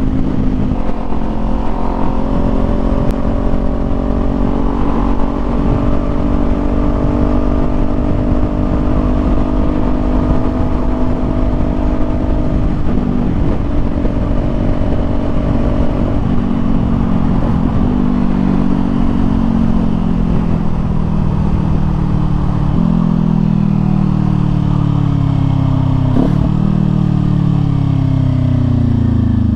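Small parallel-twin sport motorcycle's engine at a steady cruise, heard with wind rush on the helmet microphone. From about halfway through, the engine note drops in a series of steps as the bike slows and shifts down several gears, falling away near the end.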